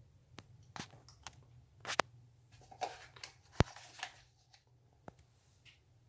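Handling noise: a series of sharp clicks and knocks with some rustling, the loudest click about three and a half seconds in, over a faint steady low hum.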